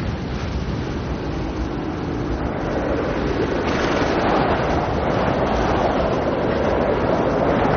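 Strong wind of a dust storm blowing steadily, growing louder about halfway through.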